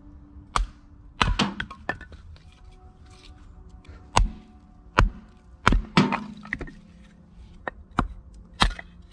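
An axe splitting firewood on a wooden chopping block: sharp, irregular knocks of the blade biting into the wood and the wood cracking apart, about a blow a second, some in quick pairs.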